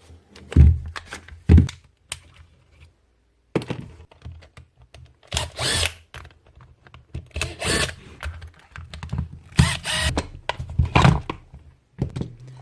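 Knocks and clatter from a Makita DHP202 cordless drill being worked on by hand: two heavy thuds about a second in, then a string of short, irregular rattling and scraping bursts.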